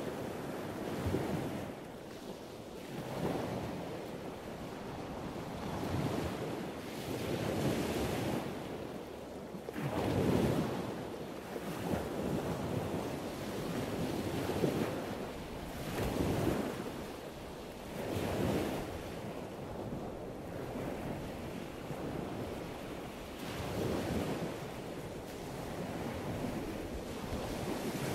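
Scuba diver breathing underwater through a regulator: hissing inhalations alternating with rushes of exhaled bubbles, swelling and fading about every two seconds.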